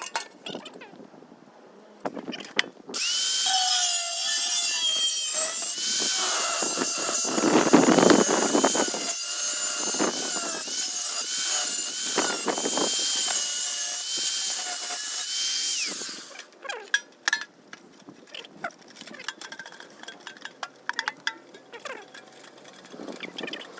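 Power tool cutting into the thin metal of a pail can for about thirteen seconds: a loud, hissing screech with a steady high whine, which stops suddenly. Scattered clicks and knocks of handling follow.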